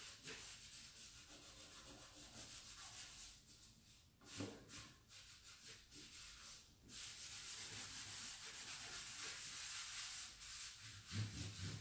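Cloth rag rubbing over a chalk-painted drawer front, wiping back freshly applied black furniture wax in repeated scrubbing strokes, steadier in the second half. A few low bumps near the end.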